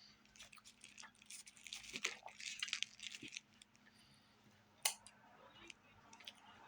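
Chewing a mouthful of wrap: soft crunches and wet mouth clicks, with one sharper click a little before the five-second mark.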